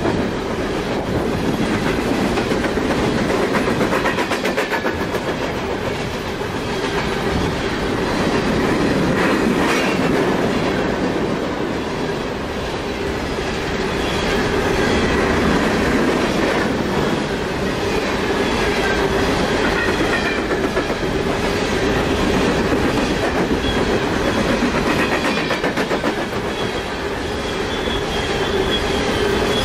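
Loaded coal train cars rolling past close by: a steady rumble with the rhythmic clickety-clack of wheels over the rail joints, swelling and easing slowly, and faint high wheel squeals now and then.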